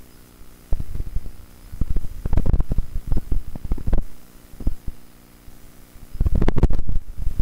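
Irregular bursts of low rumbling and knocking, starting about a second in, pausing around the middle and returning near the end, over a faint steady hum.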